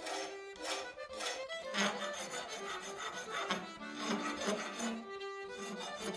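Hand file rasping in repeated strokes, about two a second, across the steel edge of a hand-forged axe head as the profile and edge are refined. Background music with sustained tones plays underneath.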